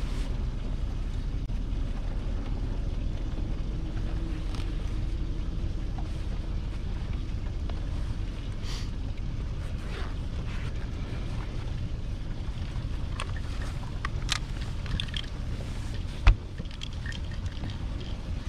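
Steady low rumble and wind-and-water hiss on a small fishing boat, with a few light clicks and one sharp knock near the end.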